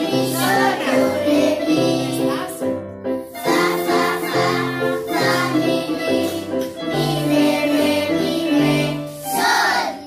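Several portable electronic keyboards played together by a class of children, a simple melody in sustained notes over a bass line. The music breaks off briefly about three seconds in, then starts again.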